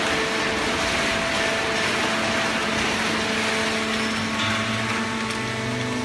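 Semi-automatic horizontal hydraulic paper baler and its chain conveyor running: a steady rushing machine noise with a few steady hums through it, and a lower hum joining about four and a half seconds in.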